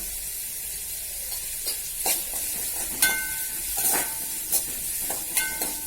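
Chopped shallots sizzling in hot oil in a kadai while being stirred, the spatula knocking and scraping against the pan about five times, some strokes with a brief ring. The onions are being sautéed with salt until they turn glassy and soft.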